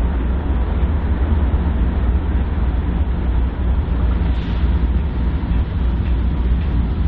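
BNSF freight train rolling past with a steady, heavy low rumble.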